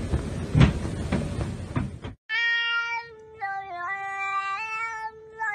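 Rustling with a few thumps for about two seconds, then a domestic cat's long, drawn-out meowing from about two seconds in. It is held on steady pitches that step up and down like a tune.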